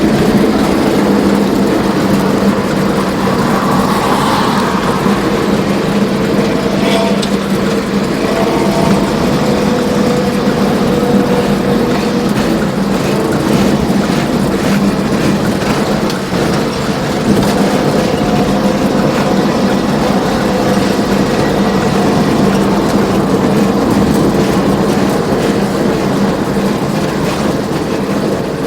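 Diesel intercity bus at speed, its engine and exhaust running in a steady heavy drone with a growling, snoring exhaust note.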